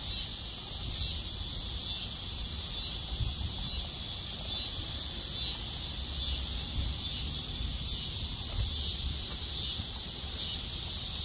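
A steady chorus of insects: a high buzzing that swells and fades in regular waves, over a low rumble.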